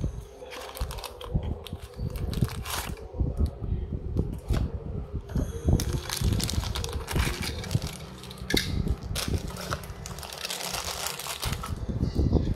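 Handling noise from unboxing a die-cast toy car: the cardboard box tapping and scraping, then the clear plastic bag around the car crinkling and crackling as it is handled from about six seconds in.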